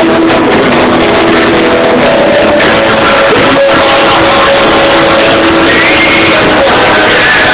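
Loud, continuous music with guitar.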